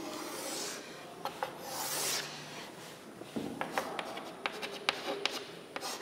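Chalk drawing on a blackboard: two longer scraping strokes in the first couple of seconds, then a run of short taps and scratches as small marks are written.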